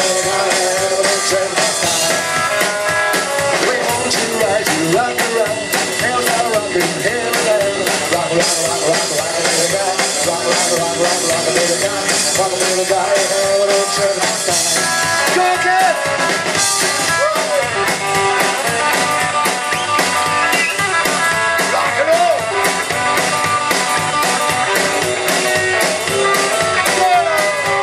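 Rockabilly band playing live: a man singing over electric guitar, upright double bass and drum kit.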